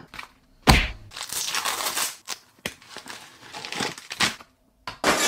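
Crinkling of a holographic foil pouch and foil blind-bag packets being handled, starting with a sharp crackle under a second in and going on in irregular rustles, with a brief pause near the end before another short crinkle.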